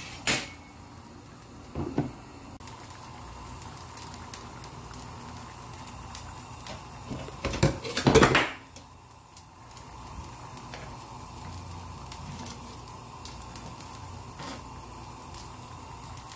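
Tomato and fish broth simmering in a frying pan, a steady bubbling hiss, with a few short knocks and a louder cluster of clatter about eight seconds in.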